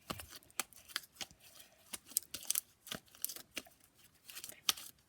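Very sticky homemade slime being pulled and squished off a hand, giving irregular small clicks and crackles with a short lull a little before the end.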